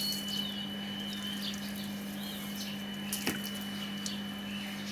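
Water running and splashing during a dog's bath, over a steady low hum, with one sharp click about three seconds in.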